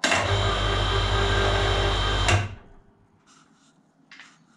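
Electric workshop hoist motor running under the load of a 54 kg dividing head, a steady hum with a strong low drone. It starts abruptly, runs about two seconds and stops abruptly. There is no soft start.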